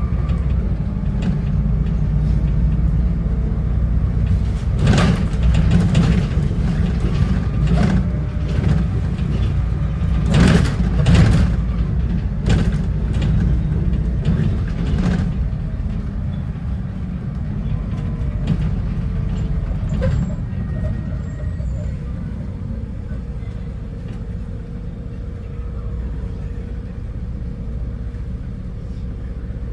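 Bus interior heard from the front: a steady low rumble of engine and road noise, with rattles and knocks from the bodywork and fittings between about 5 and 15 seconds in. It grows quieter in the last third as the bus slows in traffic.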